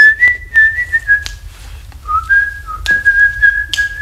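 A person whistling a tune, a single clear tone stepping up and down, with a few sharp clicks in between.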